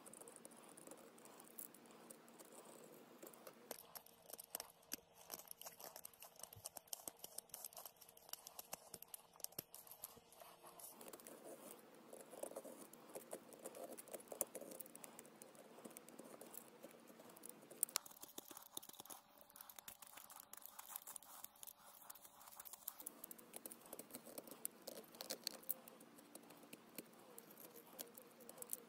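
Small hobby knife carving a poplar wood blank: a faint, irregular run of quick scrapes and clicks as the blade shaves the wood.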